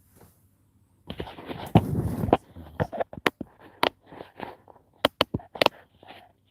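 A short rustling, scraping burst, then a string of sharp clicks and knocks at uneven intervals, several close together near the middle and end.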